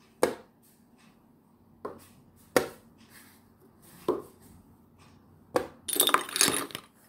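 Five sharp knocks at uneven gaps, then about a second of bright, clinking clatter near the end.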